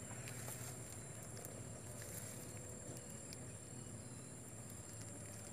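Faint outdoor ambience with a steady high-pitched insect buzz and a few faint clicks.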